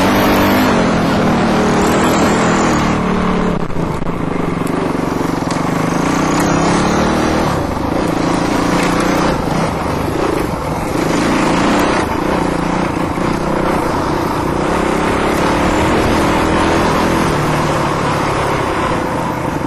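Dirt bike engine running under load close to the microphone, its pitch rising and falling with the throttle over a constant rushing noise.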